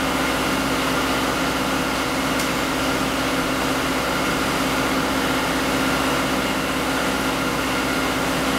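Steady hum and fan noise from the powered-up CNC router and its controller cabinet, an even machine drone with a couple of steady tones running through it.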